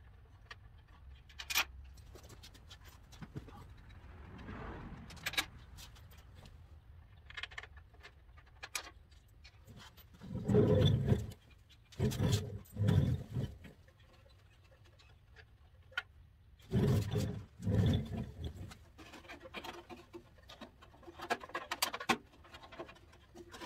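Hand work pulling a Clinton 1290 lawn-tractor engine: scattered clicks, taps and metallic clanks of tools and parts. Two pairs of short, loud low bursts come about halfway through and again about three-quarters of the way through.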